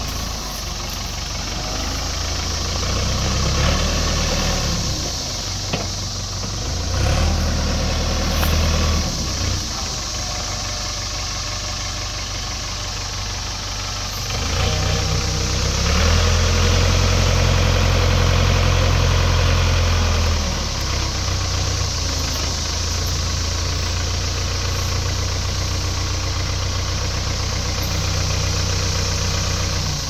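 Ford 555D backhoe loader's diesel engine running, rising in revs several times and loudest for a stretch of about six seconds midway, then settling back to a steady lower speed as the machine is driven and its loader bucket worked.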